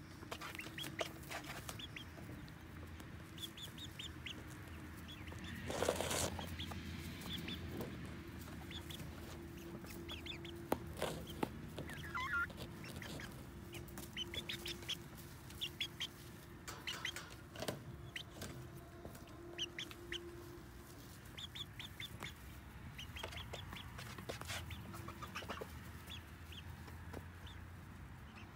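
Domestic chickens clucking softly, with short, scattered calls through the whole stretch. There is a faint steady hum underneath and a brief louder burst of noise about six seconds in.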